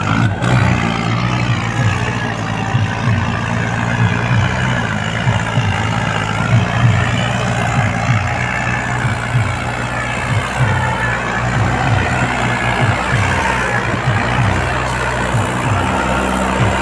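Mahindra tractor's diesel engine running steadily under load as it pulls a loaded trolley and draws near.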